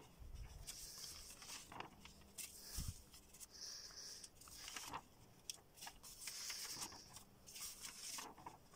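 Sheets of paper and card rustling and sliding faintly as a hand leafs through a pile of drawings, coming and going unevenly, with a soft bump about three seconds in.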